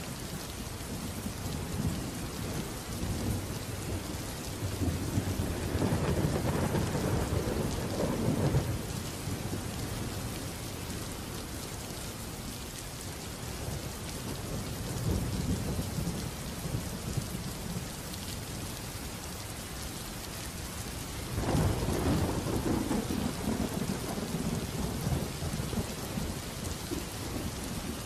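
Rain-and-thunder ambience: steady rain hiss, with two long low rolls of thunder, the first about five seconds in and the second after about twenty seconds.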